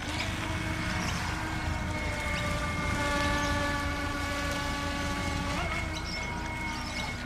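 Radio-controlled scale model fishing boat running on the water: a steady droning tone of several pitches at once. More pitches join about two to three seconds in, and most of them stop near the six-second mark.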